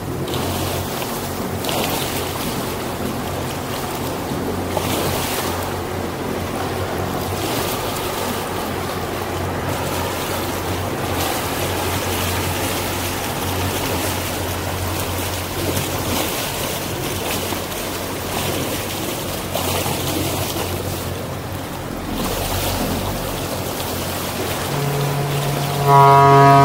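A boat's motor hums steadily under a rush of wind and water. About 25 seconds in, a ship's horn starts a loud, long blast, a deep tone with many overtones.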